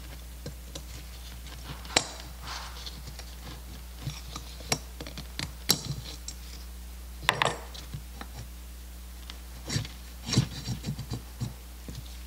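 Scattered sharp metal clicks and short scrapes as a thin pick tool is worked around the throttle shaft of a Zenith-Stromberg CD-175 carburetor body, with a cluster of clicks and rattles near the end as the brass throttle shaft is drawn out.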